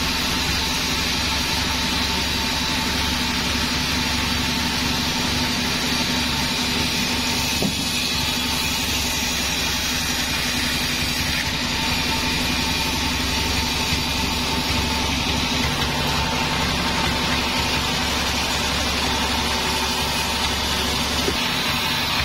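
Log bandsaw running steadily, with an even, unbroken machine hum.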